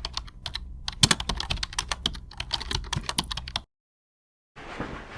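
Rapid irregular clicking, like fast typing on a keyboard, that cuts off suddenly about three and a half seconds in. After a second of dead silence, a steady hiss starts near the end.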